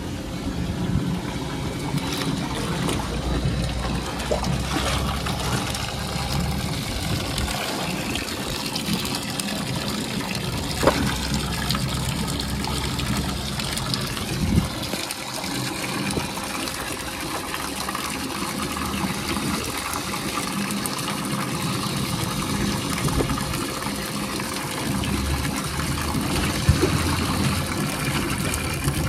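Water from a hose jetting steadily into a metal tub of water and splashing, as a lion wades in it. A few sudden louder knocks stand out along the way.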